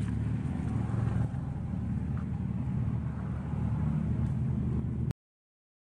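Steady low rumble of an engine running, cutting off suddenly about five seconds in.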